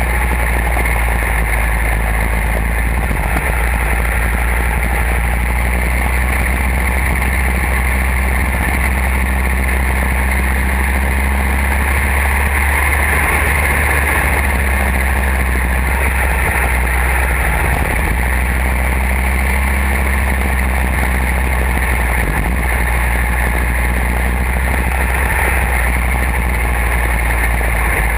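Go-kart engine running steadily at racing speed, heard from a camera mounted on the kart.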